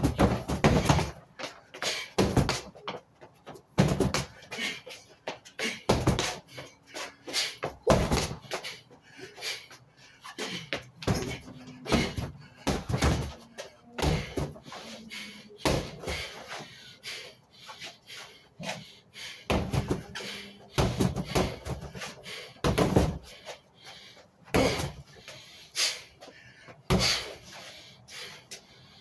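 Gloved punches and strikes landing on an Everlast freestanding punching bag: a string of irregular thuds, often in quick combinations of two or three, with short pauses between them.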